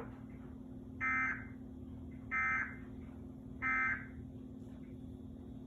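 Emergency Alert System end-of-message tones: three short screeching bursts of SAME digital data, about 1.3 seconds apart, marking the end of the alert. A steady low hum runs underneath.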